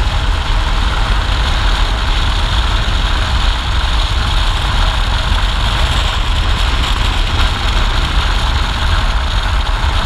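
Motorcycle riding at road speed: wind rushing over the microphone, heaviest as a low rumble, over the engine running steadily.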